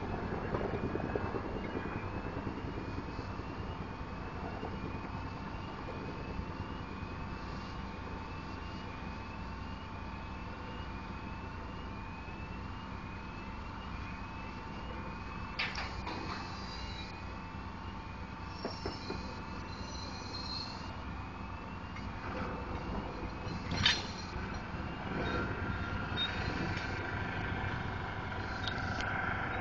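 Barge-mounted crane's machinery running steadily, with a short rising chirp repeating about once a second through the first half. There are two sharp metallic clanks, the louder one near the end.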